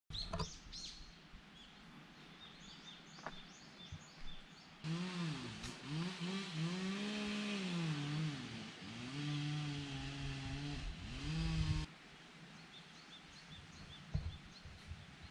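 Small birds chirping over quiet outdoor background. From about five seconds in, a motor engine runs for some seven seconds, its pitch rising and falling several times as it revs, then cuts off suddenly.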